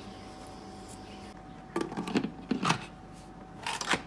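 A few sharp clunks and scrapes of a Shop Japan Cooking Pro electric pressure cooker's pot and lid being handled, in three short bursts, the last near the end as the lid is set in place.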